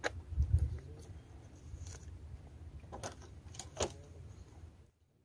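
A plastic water bottle being handled and set down on rocks: a few sharp clicks and knocks, the last two about three and four seconds in. Wind rumbles on the microphone, with a loud bump about half a second in, and the sound cuts off abruptly near the end.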